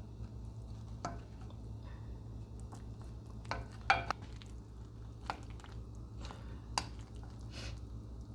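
A serving utensil scraping and clinking against a baking dish as baked enchiladas are lifted out, with scattered sharp clicks, the loudest about four seconds in, over a low steady hum.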